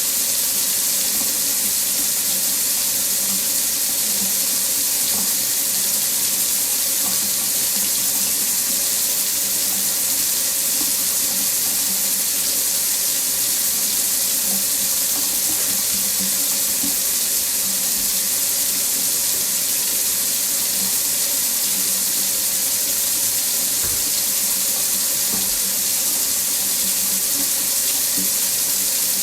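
Water running steadily from a faucet into a sink, an even hiss of splashing water with no change.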